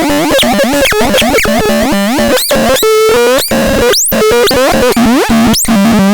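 Synthesizer playing a busy, chaotic run of pitched electronic tones that keep swooping sharply up and down in pitch, with abrupt changes from one sound to the next.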